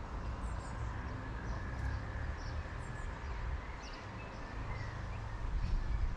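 Outdoor background: a steady low rumble with small birds chirping faintly now and then, in short high chirps.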